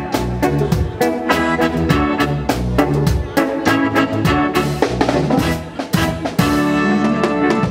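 Live band music: a Roland Juno-DS keyboard and an electric guitar playing with a drum kit, drum hits coming thick and fast.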